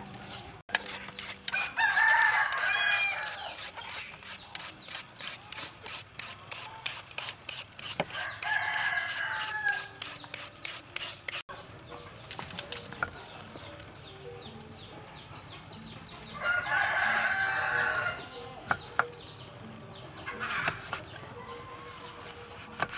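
Roosters crowing four times: about two seconds in, around eight seconds, around seventeen seconds and a shorter crow near twenty seconds. For the first half, a julienne peeler scrapes rapidly down a green fruit at about four strokes a second. After that, a knife knocks a few times on a wooden chopping board while cutting citrus.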